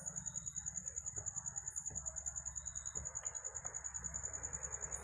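A night insect trilling: one high pitch pulsing evenly about ten times a second. Under it come a faint low hum and a few soft scrapes and taps of a plastic squeegee pressing a vinyl decal onto the truck body.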